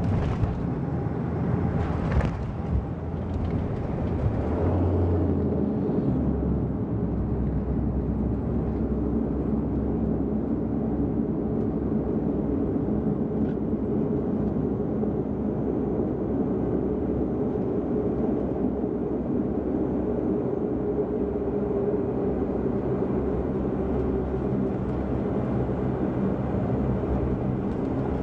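Cabin noise of a Bombardier Q400 on its landing roll: the turboprops' steady propeller drone over the rumble of the aircraft rolling on the runway, with a brief thump about two seconds in.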